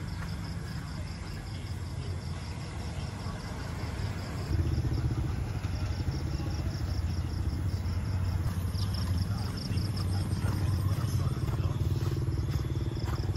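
Night street ambience: a low engine hum of traffic that grows louder about four and a half seconds in, with insects chirping in a fast, even pulse over it.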